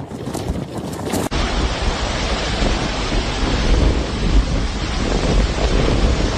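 Severe thunderstorm noise: strong wind buffeting the microphone over heavy rain, with a deep rumble. It starts abruptly about a second in, after a quieter stretch.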